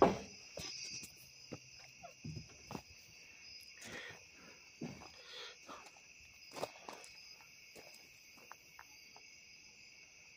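Crickets chirring steadily in a high, continuous drone, with scattered light knocks and clicks and one louder knock right at the start.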